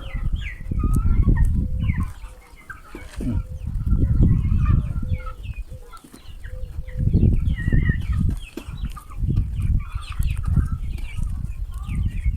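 Young chickens peeping and clucking in many short, high calls, over repeated bursts of low rumble on the microphone.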